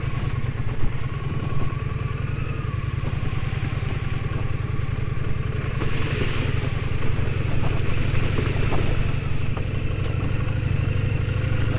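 Motorcycle engine running steadily at low, even revs while riding slowly over a dirt track, with wind and tyre noise over it.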